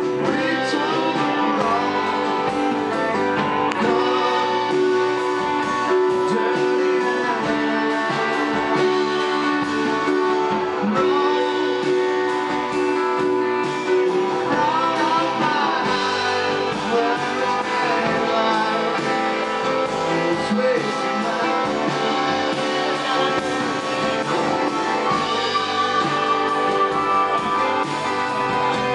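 Live band playing a guitar-led song, with electric guitar over drums and a second guitar, recorded from the audience in a club.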